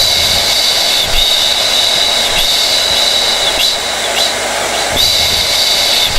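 Hair dryer running steadily: a rush of air under a high, constant whine that wavers slightly now and then.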